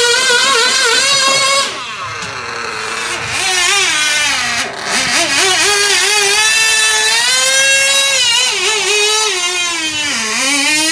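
Small model pulling tractor's motor giving a high, wavering whine as it drags a weight sled along the track. About two seconds in the pitch drops and the whine softens as the motor bogs under the sled's load, then it wavers and climbs back, dipping once more near the end.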